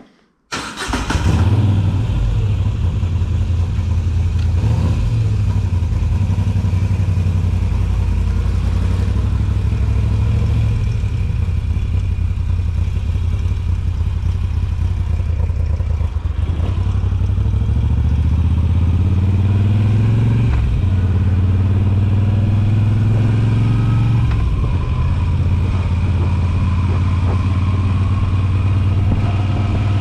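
Moto Guzzi V7 850's air-cooled transverse V-twin running loud through Mistral short exhausts. The engine cuts in after a moment of silence and pulls along the road. Its pitch climbs steadily under acceleration from about halfway through and drops sharply at a gear change about two-thirds of the way in.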